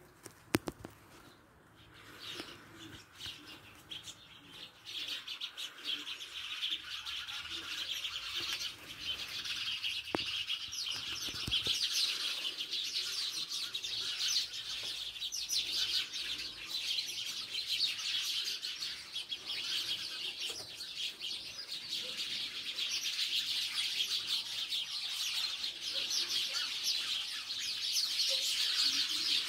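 Many small birds chirping and chattering at once in a dense, continuous chorus. It swells over the first few seconds, and there is a sharp click about half a second in.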